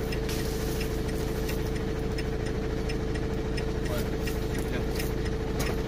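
Renault van's engine idling steadily, with a light regular ticking over it.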